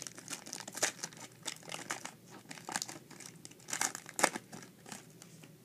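Foil wrapper of a Yu-Gi-Oh Lord of Tachyon Galaxy booster pack crinkling as it is torn open and handled, a run of sharp crackles with the loudest about a second in and near four seconds in.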